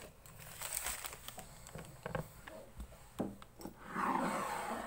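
Crinkling and rustling with scattered light clicks as skincare products and their packaging are picked up and handled, growing louder near the end.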